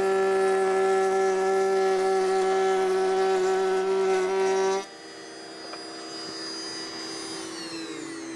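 Table-mounted router running with a loud steady whine as a board is fed past a 22.5-degree lock miter bit. About five seconds in the sound drops off sharply as the board clears the cutter, the router runs on more quietly, and near the end its pitch starts to fall as it winds down.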